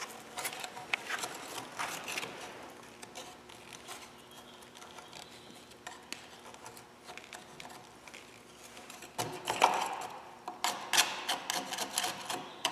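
Frozen mud being scraped and chipped out of a skid steer's quick-attach coupler: irregular scrapes and knocks, with louder scraping about nine seconds in and a run of quick knocks near the end.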